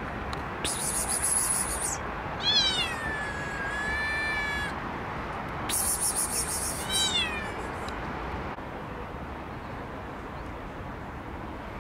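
Young orange tabby cat meowing twice: a long call that falls in pitch and levels off, and a shorter one a few seconds later. Two short high hissing sounds come just before each call.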